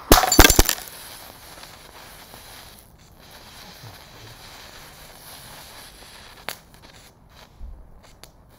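Glass measuring cup holding a burning sodium chlorate and sugar mixture bursting apart with a loud bang and scattering glass in the first second. A steady hiss from the burning remains follows, with one sharp crack about six and a half seconds in.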